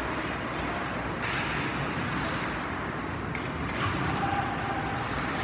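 Ice hockey rink ambience during play: a steady wash of skates on ice and arena noise, with a sharp knock about a second in and another near four seconds.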